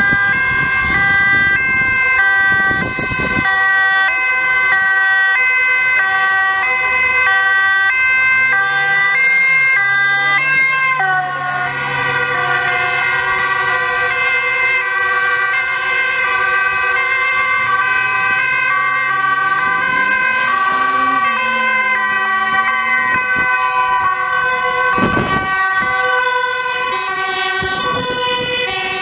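Sirens of several Dutch emergency vehicles in convoy, overlapping two-tone sirens stepping between pitches, with vehicle engines rising in pitch as they accelerate. A fire engine's siren comes in near the end as it passes close.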